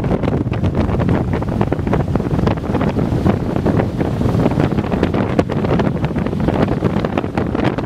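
Strong wind buffeting the microphone in constant gusts, loud and unbroken, with the wash of breaking surf beneath it.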